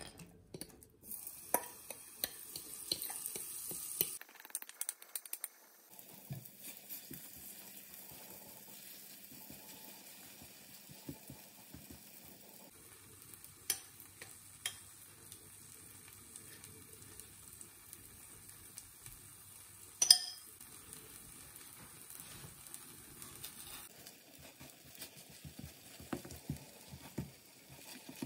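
Banana pancake batter hitting hot oil in a non-stick frying pan, sizzling for the first few seconds and then settling to a quiet, steady frying hiss. A spoon scrapes and clicks against the bowl and pan, with one sharp clink about twenty seconds in.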